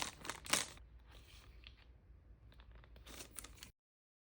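Sealed blind-box bag crinkling and being torn open: two sharp rips at the start, then lighter rustling. Near the end the sound cuts off abruptly to dead silence.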